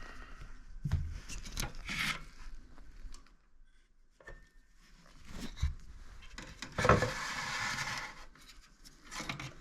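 Hash boards sliding out of an Antminer Z15 chassis: scraping and rubbing with a few knocks, the longest and loudest scrape about seven seconds in.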